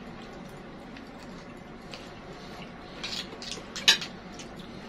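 Metal spoons clinking and scraping against plates of fatta rice and meat. A few sharp clicks come in the second half, the loudest a little before the end.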